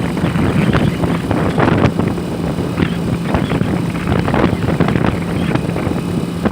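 An engine running steadily with a low hum, under heavy wind buffeting the microphone.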